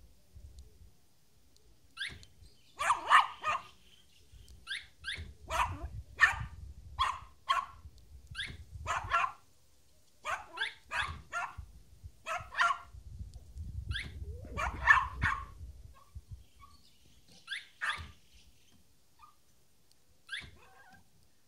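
Yorkshire terrier barking: a long run of sharp, high yaps, often several in quick succession, thinning out to a few single barks near the end.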